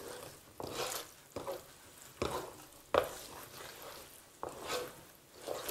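Wooden spoon stirring and scraping a thick, cooking starch-sugar-butter pudding (hasude) around a metal bowl, in separate strokes about one a second.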